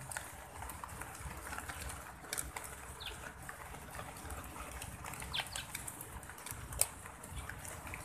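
Eurasian tree sparrows giving a few scattered short chirps, with occasional sharp clicks, the loudest near the end, over a steady low rumble.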